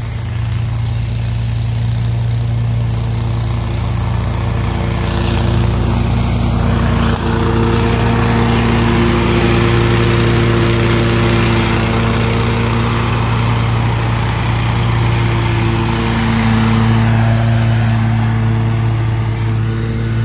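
Engine of a stand-on commercial lawn mower running steadily at mowing speed. It is louder around the middle as it passes close by.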